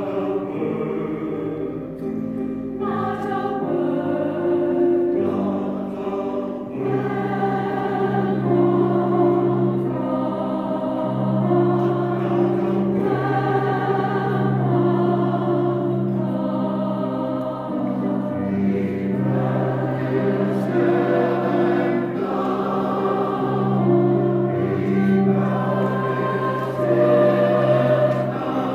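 Mixed church choir singing a slow spiritual in several parts, with long held chords.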